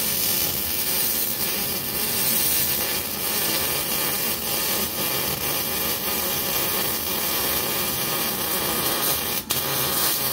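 Hzxvogen MIG-250 welder's arc running a MIG bead, filling in over a tack weld: a steady crackling hiss, broken very briefly about nine and a half seconds in.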